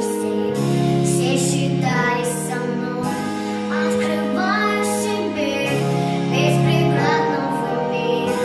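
A girl of about nine singing live into a handheld microphone over a pop backing track, holding long notes between shorter sung phrases.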